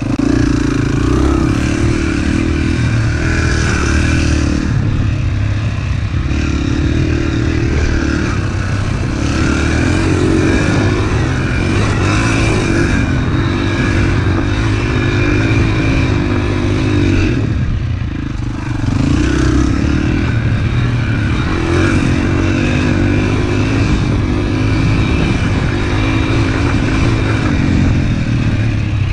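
Pit bike engine being ridden hard off-road, revving up and easing off again and again as the rider works the throttle and gears, with a brief lift off the throttle a little past halfway.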